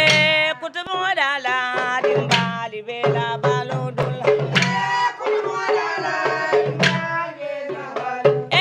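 Music: a voice singing wavering, ornamented phrases over steady hand-drum and percussion beats.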